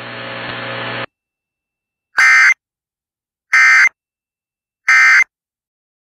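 Emergency Alert System end-of-message data bursts: three identical short, shrill screeches of digital tone, about a second and a half apart, marking the close of the alert. Before them a steady broadcast hiss with a low hum cuts off about a second in.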